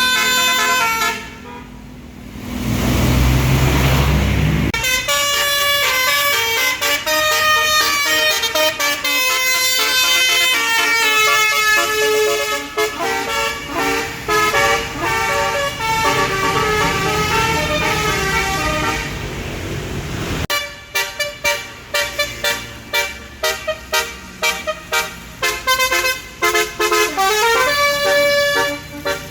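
A bus's Basuri telolet multi-tone air horn playing a tune in sustained, changing notes. It breaks off briefly early on under a low engine rumble, then switches about two-thirds of the way through to a rapid run of short staccato toots.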